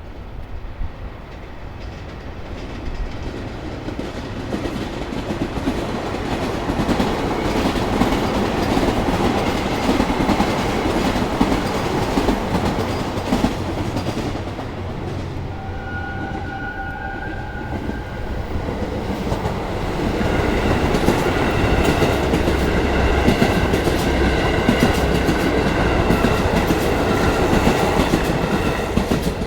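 KiHa 183 series diesel multiple unit running past on the rails: wheels clattering over the rail joints under a steady rumble that builds over the first few seconds. A short high tone sounds about halfway through, and a louder stretch with a steady high whine fills the last third before it eases off near the end.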